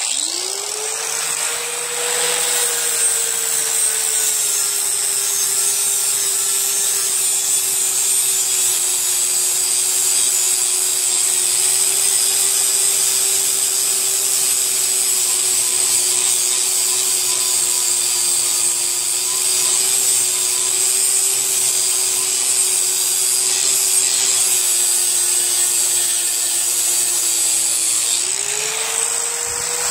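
Electric power tool grinding a lawn mower blade to sharpen it: the motor spins up, then runs steadily a little slower under load with a high grinding hiss, and speeds up again near the end as the blade comes off the stone.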